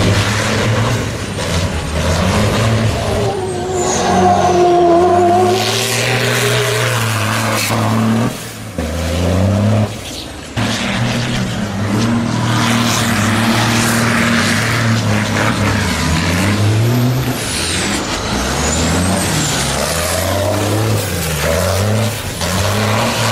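Race trucks' diesel engines revving hard up and down as the trucks drift, with high whistles gliding up and down over the engine note. The engine note drops sharply a couple of times near the middle as the throttle is lifted.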